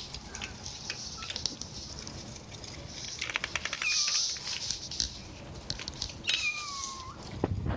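Four-week-old kittens mewing: a few thin, high mews, the longest near the end sliding down in pitch, with scattered small clicks and rustling in between.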